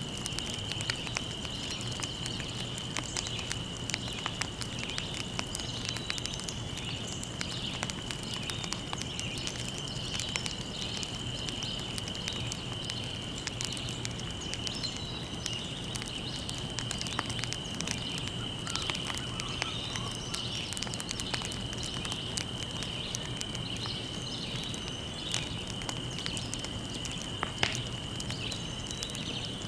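Wood fire crackling with frequent small pops and one sharper pop near the end, over a steady high-pitched hum.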